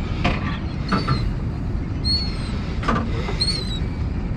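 Wind rumbling on the microphone with a few knocks on the boat, and three short, high, downward-sliding seabird calls over the feeding blitz.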